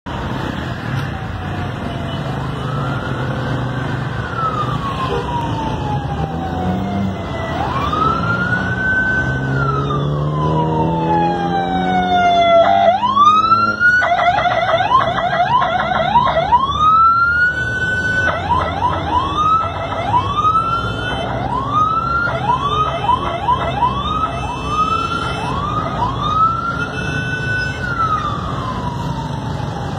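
Ambulance electronic siren sounding over city traffic: a slow rising and falling wail, switching about 12 seconds in to a fast yelp of quick rising sweeps as the ambulance passes, and returning to a slow wail near the end.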